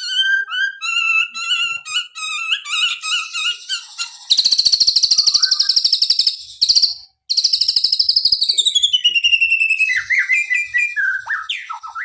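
White-rumped shama (murai batu) singing: first a run of varied whistled notes, then a long, loud, very fast trill with a brief break, sliding down in pitch at its end. This is the bird's imitated cililin song material. It closes with more quick varied notes.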